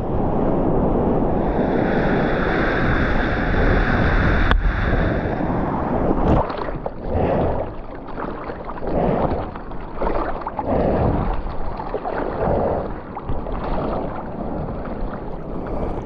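Surfboard sliding through whitewater, a steady rush of water with wind on the microphone, then the surfer hand-paddling, each stroke a splash about once a second.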